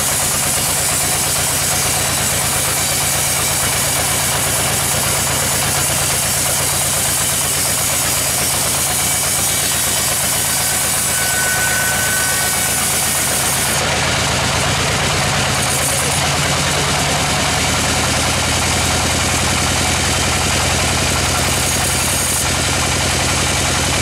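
Band sawmill running steadily, its blade sawing through a crooked teak log: a steady machine hum under a broad hiss, the sound changing slightly about fourteen seconds in.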